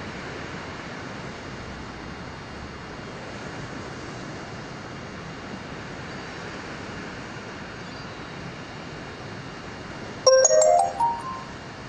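A steady rushing background noise, then about ten seconds in a loud electronic chime of several quick notes climbing in pitch, lasting about a second.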